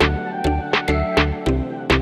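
Electronic music with a steady beat: deep bass-drum pulses about two to three times a second, sharp percussion hits and held synth notes.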